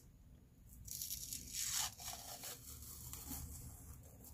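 Faint soft peeling swishes as the thin film is stripped from a mackerel's skin by hand, a few short pulls, the clearest about a second in and just before two seconds in.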